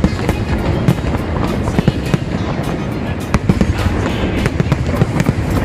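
Aerial fireworks going off in quick succession: many sharp cracks and bangs at irregular intervals over a continuous low rumble of bursts.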